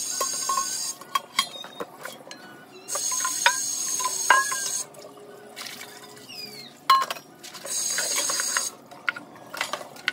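Tap water running in three spurts, about one, two and one second long, as dishes are rinsed by hand. Between the spurts, pots, pans, crockery and cutlery clink and clatter as they are stacked to drain.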